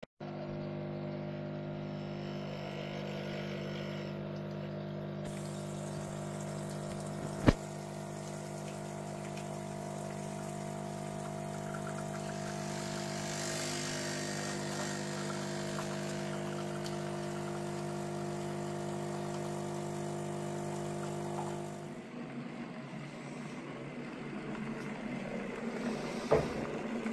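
A Bosch capsule coffee machine runs, its pump humming steadily as it brews coffee into a mug, with one sharp click about seven seconds in. About five seconds before the end it gives way to a vibratory tumbler running, a rougher, noisier buzz with a single knock near the end.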